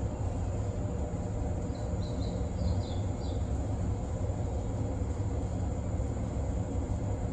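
JR 189-series electric train standing at a platform, its onboard equipment giving a steady low hum. A few short high chirps come about two to three seconds in.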